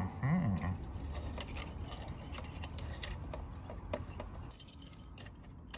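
Padlocks and their keys being handled and put away, with irregular small metal clinks, rattles and jingles.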